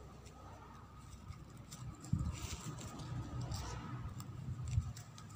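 Soft rustling and sliding of narrow ribbon strips as they are threaded through a ribbon ball and pulled by hand, with light handling clicks that grow a little louder about two seconds in.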